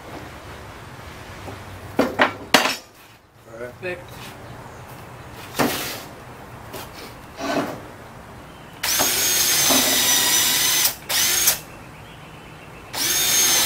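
A few knocks, then a power drill boring pilot holes into lumber: it runs steadily with a high whine for about two seconds, gives a short burst, and starts again near the end.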